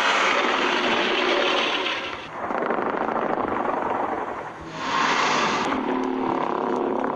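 Invented kaiju monster sound effects: three long, noisy roars, each about two seconds, one after another, the last carrying a low drone.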